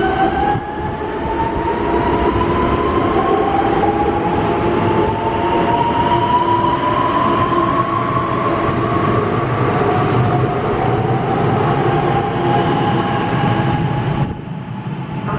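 Electric multiple unit train pulling out and accelerating: its traction motors give a whine that climbs slowly in pitch over a steady rumble of wheels on rails. The sound dips briefly near the end.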